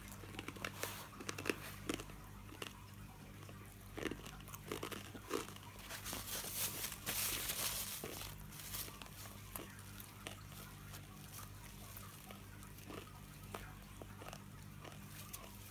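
A corn chip being crunched and chewed in the mouth: crisp crackling bites, busiest in the first half, then thinning out to small scattered chewing sounds.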